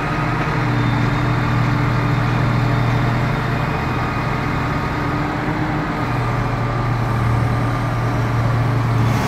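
Liebherr L544 wheel loader's diesel engine working as the loader moves and lifts its bucket: a steady drone that picks up right at the start, eases off a little in the middle and builds again after about six seconds.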